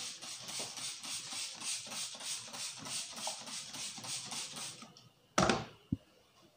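Hand trigger spray bottle misting water onto a customer's hair, pumped over and over at about two to three squirts a second, then stopping. A sudden loud knock follows, then a short low thud.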